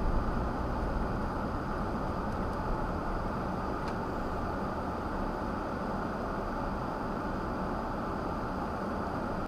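Steady in-cabin car noise, engine and tyres on the road, picked up by a dashcam microphone while driving in traffic.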